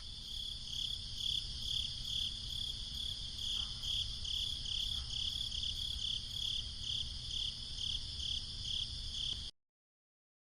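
Crickets chirping in a regular rhythm, about two chirps a second, over a steady higher insect trill; the sound cuts off suddenly near the end.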